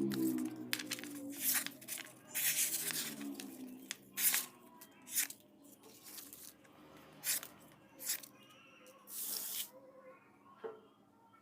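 Irregular scraping strokes, each under a second long, thinning out and stopping near the end, over faint background music.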